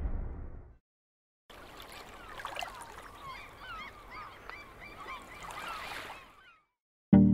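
A deep boom dying away in the first second, then after a short gap about five seconds of a flock of birds calling over one another in many short, bending calls. Music with a beat comes in right at the end.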